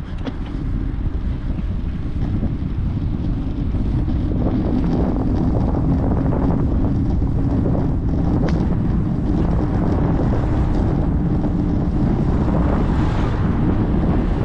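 Wind buffeting an action camera's microphone while riding a bicycle: a steady low rumble with a few light clicks, growing a little louder a few seconds in.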